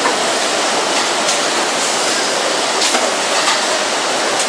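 Automatic shrink-wrap bundling machine for ice cream tubs running: a steady rushing noise with a few faint clicks from its moving parts.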